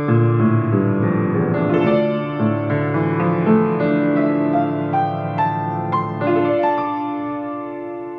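Solo piano playing slow, gentle chords, the notes ringing on and fading a little near the end.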